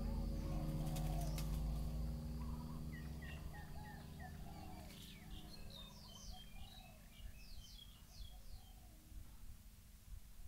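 Birds calling: short high chirps and lower repeated arched calls, over a low steady hum that fades away in the first few seconds, the whole fading down toward the end.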